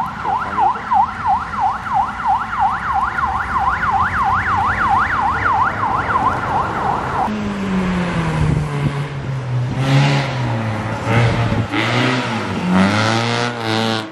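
Rally course car's siren yelping in fast rising-and-falling sweeps, about three a second, that cut off abruptly about seven seconds in. Then a rally car's engine approaches, revving up and down through gear changes, and passes close near the end.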